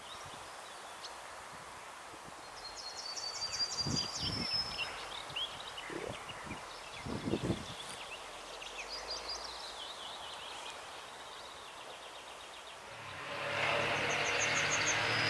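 Songbirds singing short trills over steady outdoor background noise, with a few dull low thumps a few seconds in. Near the end the noise of an approaching vehicle swells up.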